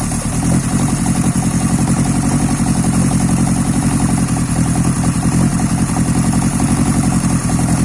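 Drag-race engine in a scrap car idling loud and steady, with a fast, even exhaust pulse.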